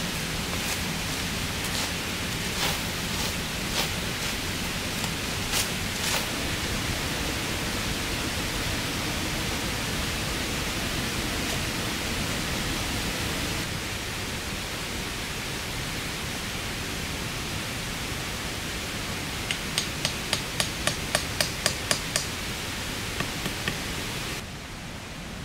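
Steady rushing noise throughout. Scattered sharp clicks come in the first few seconds, and near the end a quick run of about ten clicks comes at about four a second. The noise drops suddenly just before the end.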